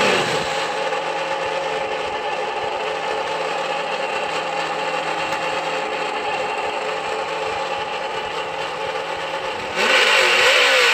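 Simulated engine sound from a Traxxas On Board Audio module, played through the RC truck's small speaker, holding a steady idle. About ten seconds in it turns suddenly louder and rougher, a burst that comes from the module itself rather than from the throttle.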